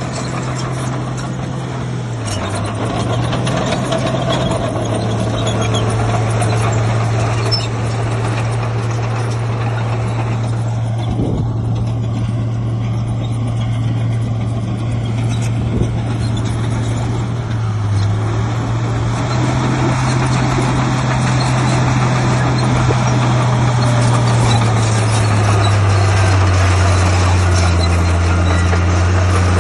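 Heavy diesel engine of an earthmoving machine running under load, a steady low drone whose pitch steps down and back up several times as the throttle and load change.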